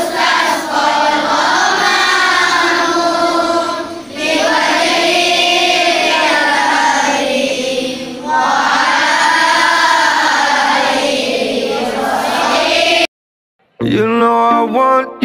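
A choir of children singing together in long, drawn-out phrases. It cuts off suddenly about 13 seconds in, and after a moment's silence a different, instrumental piece of music starts.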